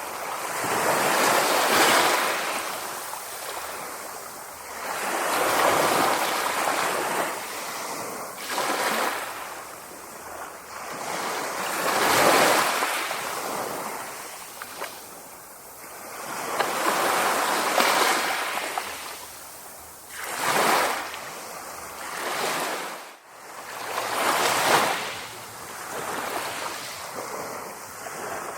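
Sea waves washing onto the shore, one surge after another every three to four seconds, each swelling and then fading away.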